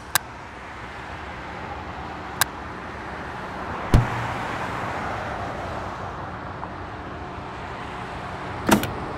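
A steady rushing noise that slowly grows louder, broken by a sharp click near the start and another about two and a half seconds in, a heavy thud about four seconds in, and a double click near the end.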